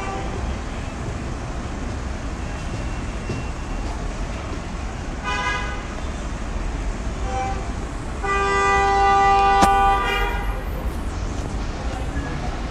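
A horn sounds twice: a short toot about five seconds in, then a louder, steady blast of about two seconds with a sharp click partway through, over a steady low rumble.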